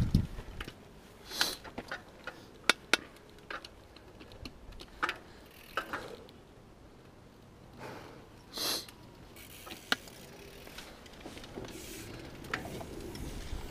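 Scattered light clicks and knocks from a mountain bike held almost still, about a dozen spaced irregularly, with a brief soft rustle about two-thirds through. A low rumble starts to build near the end as the bike begins to roll.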